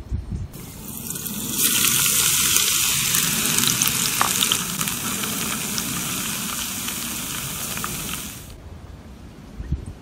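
Chopped scallions and ginger sizzling in hot oil in a small pan, cooking into a scallion ginger oil. The sizzle starts about half a second in, gets louder a second later, holds steady and cuts off sharply near the end.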